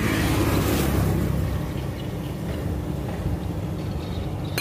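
Steady low outdoor rumble with a hiss over it, loudest in the first second and then settling a little.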